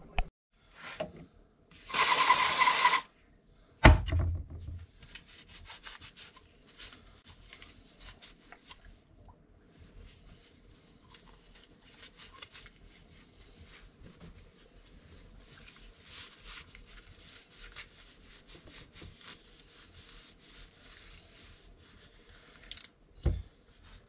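About two seconds in, an aerosol spray can hisses for about a second, followed by a sudden thump. A cloth then rubs on the heated grip's tube, faint and continuous, with another thump near the end.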